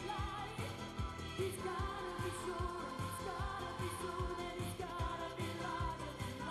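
Pop song with a singer's voice over a steady drum beat of about two hits a second.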